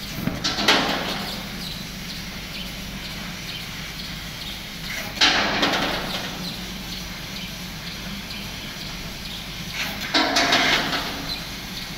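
Fiber laser cutting machine working sheet metal. A steady machine hum runs underneath, with three hissing bursts about a second long: near the start, about five seconds in, and about ten seconds in, as the head cuts in a shower of sparks.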